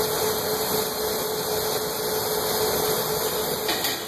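Steady hiss and hum of a glassblowing bench: a hand torch's gas flame hissing while the glass lathe runs, with one steady mid-pitched tone throughout.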